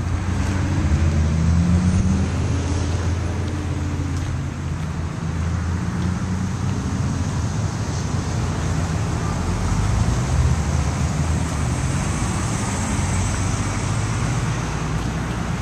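Steady low motor-vehicle rumble with a constant hiss over it.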